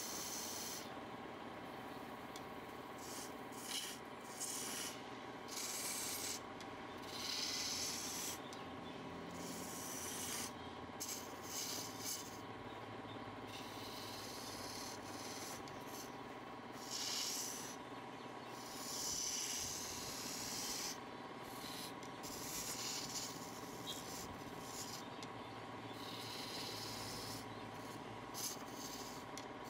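Wood lathe running with a steady hum while the spinning workpiece is worked in short, repeated passes, each bringing a hissing scrape in and out.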